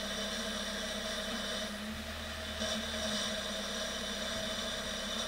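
Ford Duratec HE 2-litre four-cylinder petrol engine idling steadily, with a hissing intake noise because the air intake hose is disconnected from the airbox, which is nothing to worry about. The hiss drops out briefly about two seconds in. The engine runs smoothly on its newly replaced engine mounts.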